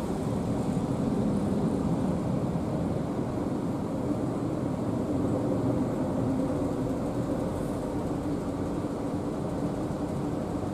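Steady low engine drone with a faint constant hum and no change in pitch.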